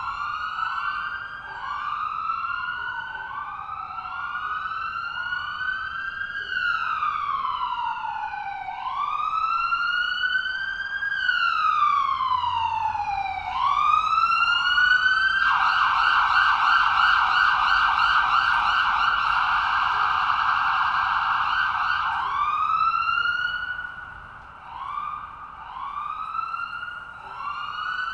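Several ambulance sirens sounding together in overlapping rising whoops. A slower wail rises and falls a third of the way through. Just past halfway a fast yelp takes over for about six seconds before the whoops return.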